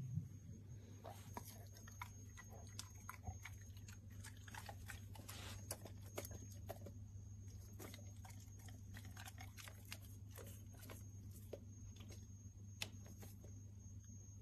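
A golden retriever chewing a banana slice with a pill hidden in it: faint, irregular wet clicks and smacks of the mouth over a steady low hum.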